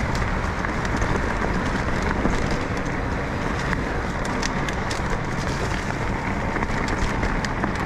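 Mountain bike riding along a dirt trail: a steady rush of wind and tyre noise, with many small scattered clicks and rattles.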